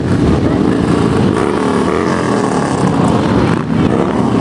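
A procession of large touring motorcycles riding past one after another at low speed. Their engines run steadily, and the engine pitch rises and falls as each bike goes by.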